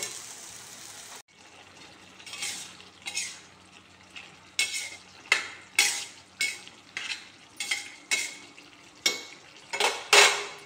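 A ladle stirring and scraping a thick potato curry in a kadhai, a string of sharp scrapes and knocks against the pan about one or two a second. A steady sizzle is heard for about the first second, then cuts off.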